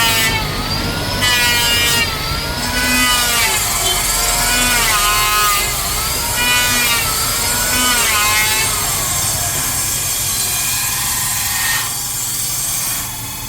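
Electric power saw ripping Bayur wood, its motor whine dipping in pitch and recovering over and over as the blade is pushed through the cut. It then settles into a steadier noise for the last few seconds.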